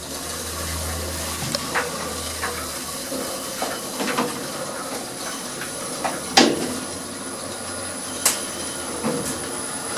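Otis Gen 2 lift car travelling up its shaft, heard from on top of the car: a steady rushing hiss of travel, with a low hum that fades after about three seconds and scattered clicks and knocks from the car and shaft, the loudest a little past six seconds in.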